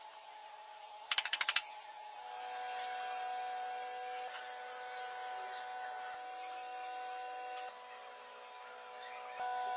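A quick run of five or so sharp taps about a second in, from a glass tabletop being set down on the table frame. After it, soft background music of long held chords that change every few seconds.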